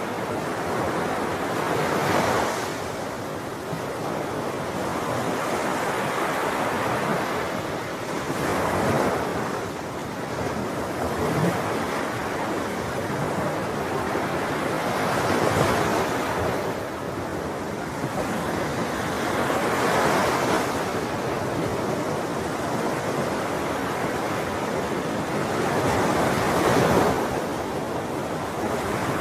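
Ocean surf, waves washing in continuously and swelling about every five to seven seconds as each one breaks.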